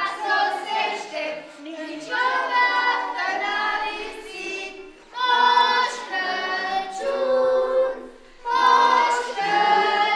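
A group of children singing a song together in held, sung phrases, with short pauses for breath between lines.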